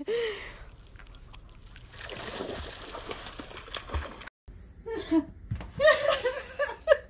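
A dog splashing through thin, broken ice and water among reeds, a steady wash of splashing for about two seconds. After a sudden break, a person's voice and laughter.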